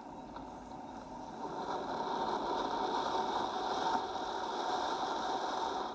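Anar (flower-pot fountain firecracker) burning: a steady hiss of spraying sparks that swells about a second and a half in.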